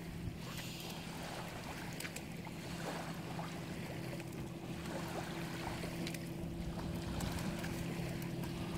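A steady low motor drone over wind and lapping water, with small splashes as a dog steps and noses about in the river shallows.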